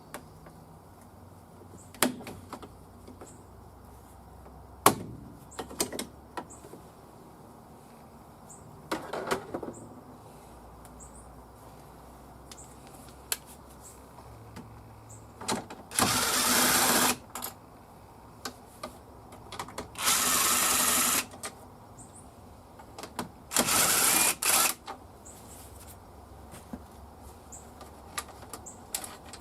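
Cordless drill/driver running in three short bursts of about a second each, backing out the shifter's three mounting screws, with scattered clicks and knocks of tools and parts in between.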